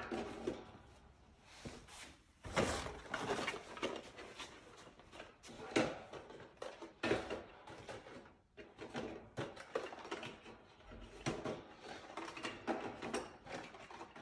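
Square boxed needle-exchange vending packs being slid one after another into a vending machine's dispensing column: a string of irregular knocks, clicks and scrapes.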